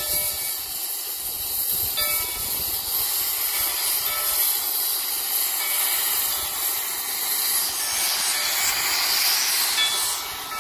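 Steam hissing steadily from the open cylinder cocks of Denver & Rio Grande No. 168, a 4-6-0 steam locomotive, growing stronger near the end.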